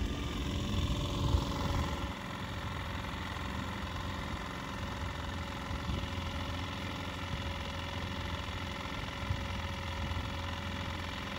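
Small sailboat's outboard motor running steadily under way at about four knots, over the wash of water along the hull. A few low bumps come in the first two seconds.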